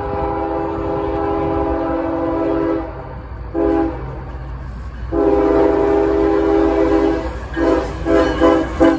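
Multi-chime air horn of CSX freight locomotive 767 blowing a horn salute: a long blast, a short one, a second long blast, then three quick short toots near the end, over the low rumble of the oncoming train.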